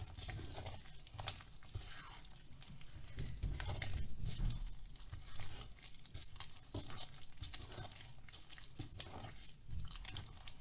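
A hand kneading soft, oily flour-and-water dough in a ceramic bowl: uneven wet squishing and slapping as the olive oil is worked in.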